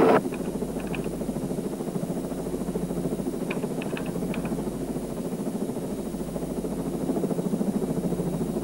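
Helicopter in flight: a steady, rhythmic rotor beat over the engine drone, with a few faint clicks about four seconds in.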